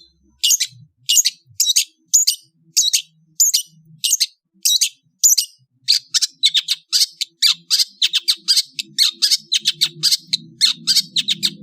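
Long-tailed shrike (cendet) giving short, sharp, harsh calls in a steady series, about one every half second. About six seconds in the calls speed up to three or four a second.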